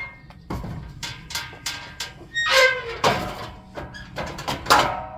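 A heavy-duty metal motorcycle loading ramp being handled and set against the van: a series of clanks and knocks, the loudest about two and a half seconds in and near the end, with metal ringing after the bigger hits.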